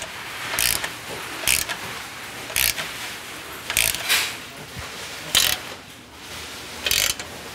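Hand ratchet wrench tightening exhaust bolts, in short bursts of clicking about once a second or so.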